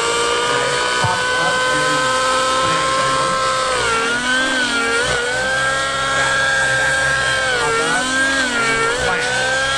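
Nitro-powered RC helicopter in aerobatic flight: a steady high whine from the engine and rotor head, dipping in pitch and recovering twice, about four seconds in and again near eight seconds, as the rotors load up during the manoeuvres.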